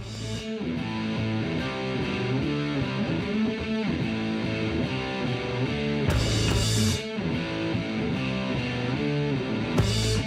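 Rock music with distorted electric guitar, starting suddenly, with two short crashing bursts about six seconds in and near the end.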